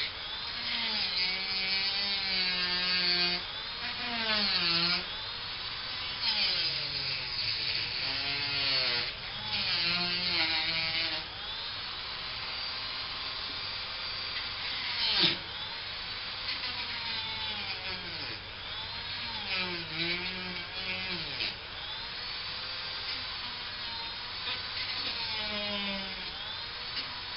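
A small high-speed power tool running, its pitch repeatedly dipping and recovering as it is pressed into the work and eased off, with a sharp click about halfway through.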